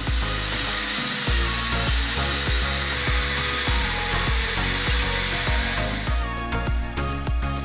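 Small pen-style electric mini drill running with a high whine and hiss as its bit works into a folded strip of soda-can aluminium; it stops about six seconds in. Background music plays throughout.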